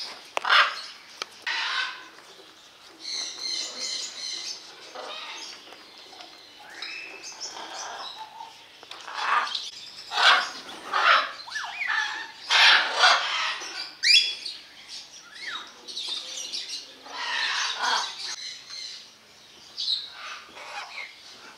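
Parrots calling: a string of short squawks and chirps with a few quick rising squeaks, busiest in the middle.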